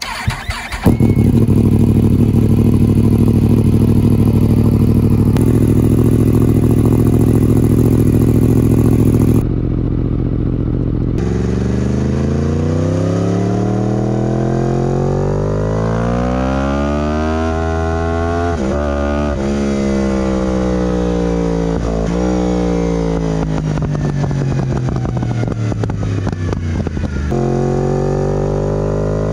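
2016 Yamaha R1M's inline-four motorcycle engine heard close at the exhaust. For the first nine seconds or so it runs loud and steady at a standstill. After a cut it is under way: the revs climb, there is a quick upshift, the pitch then falls steadily as the bike slows, and it climbs again near the end.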